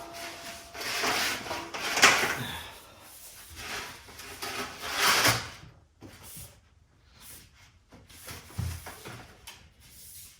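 Irregular rustling, scraping and clunking of objects being handled and shifted about, loudest about two and five seconds in, then sparser and quieter.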